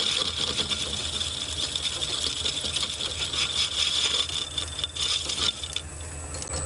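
Lorch lathe running with a boring bar cutting into a spinning steel plate: a rattly, scraping cut with a steady high ring, stopping near the end. The tool is not cutting cleanly and feels like it is rubbing, despite apparent clearance.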